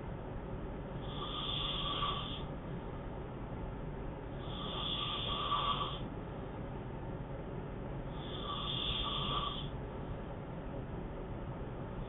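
A sleeping man snoring, three snores about three and a half seconds apart, each lasting a second or so.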